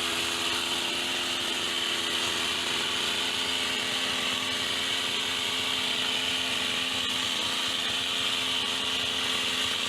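Petrol hedge trimmer's small engine running steadily at high speed, holding an even pitch.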